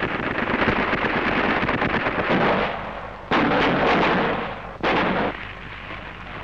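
Artillery fire on a 1930s sound-on-film newsreel track: a rumbling, crackling barrage, then two sudden loud shots about a second and a half apart.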